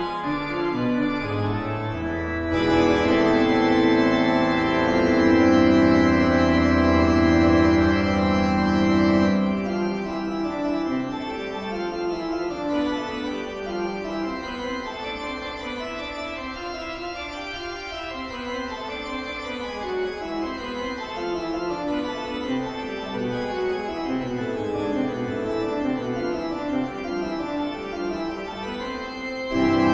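Eerie horror-style background music played on an organ: held chords over a deep bass for about the first nine seconds, then quieter, quicker runs of notes.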